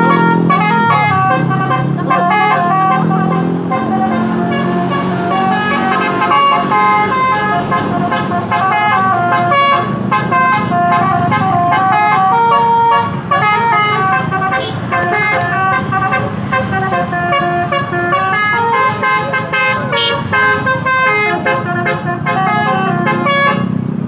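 Bus telolet horn, a Basuri multi-trumpet air horn, playing a long melody: several horn tones sound together and step from note to note without a break.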